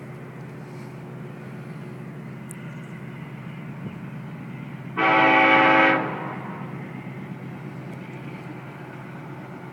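Locomotive horn of CN 8851, an EMD SD70M-2, sounding one short blast of about a second, roughly halfway through. It is the loudest sound, over the steady low rumble of the train.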